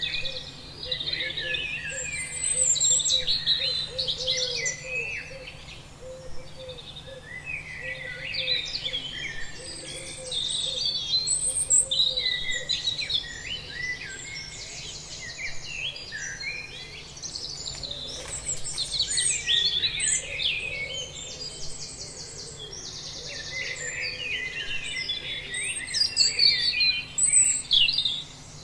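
Several birds singing and chirping over one another without a break: quick high twitters and short trills, with a softer, lower call repeating underneath.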